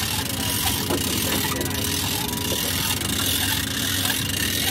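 Steady low hum of an idling engine, with faint voices in the background.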